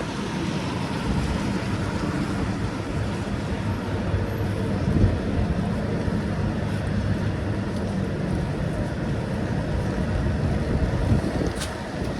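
Street traffic: a motor vehicle's engine running with a steady low hum amid general road noise.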